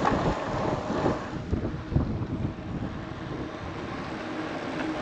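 Wind buffeting the microphone while riding a bicycle, gusty and strongest in the first two seconds, then easing to a steadier rush.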